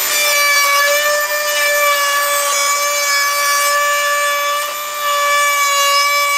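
Dremel rotary tool in a 335 plunge router base, mounted under a router table, running at a steady high whine while a wood strip is fed past the piloted profile bit, routing its edge.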